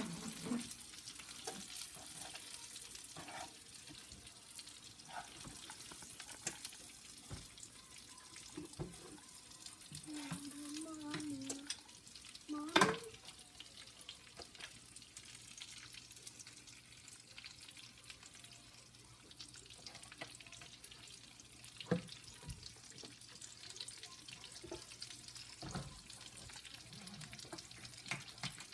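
Chicken cutlets frying in a pan of oil, a steady sizzle, with scattered clicks and taps of utensils and a sharp knock about halfway through.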